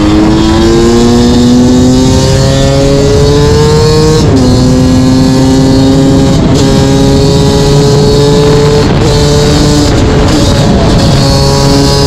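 Yamaha YZ250 two-stroke motorcycle engine under acceleration. Its pitch climbs for about four seconds, then drops sharply at an upshift. It holds fairly steady with further shifts around six and a half and nine seconds in.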